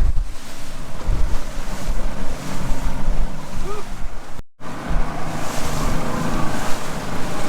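Wind buffeting the microphone aboard a small boat on choppy water, with the boat's engine running underneath. The sound drops out for an instant about halfway through, after which a steady engine hum stands out more.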